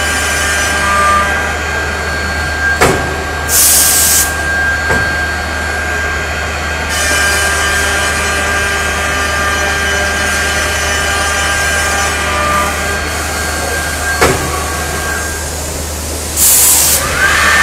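CNC door-machining centre for lock and hinge recesses running with a steady mechanical hum and a whine. About three and a half seconds in and again near the end there are short, high hissing bursts, and a few sharp clicks come in between.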